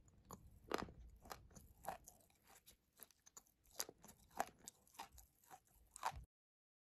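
Close-miked chewing of a paste of blue clay: irregular sharp crunches and mouth clicks. The sound cuts off abruptly a little after six seconds in.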